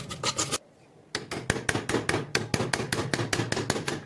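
Rapid, even strokes of hand tool work on the rusty knife's steel, about seven a second. They break off for about half a second soon after the start, then resume.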